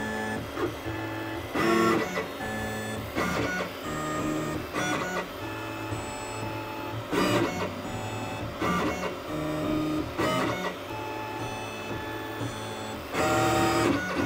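CubePro Duo 3D printer running a calibration print: its stepper motors whine as they move the print head, the pitch jumping from one held note to another every second or so. Short clicks come now and then.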